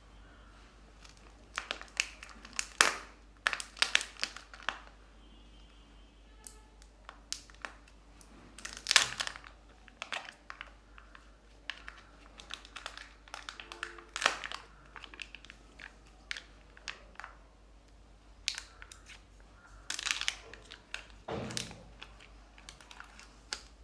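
Kinder Joy egg's plastic-foil wrapper and sealed lid crinkling and tearing as hands peel them off, in irregular clusters of sharp crackles with pauses between.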